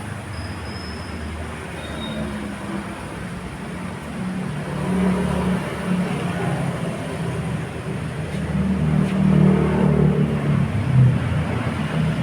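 Motor vehicle engine running, with a low rumble that gets louder about four seconds in and again around eight seconds.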